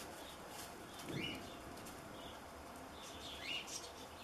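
A small bird chirping twice, short high calls about a second in and again near the end, over a steady background hiss.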